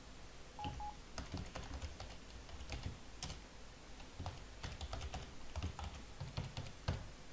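Computer keyboard being typed on, in irregular light clicks as a command is entered. A short double beep sounds about half a second in.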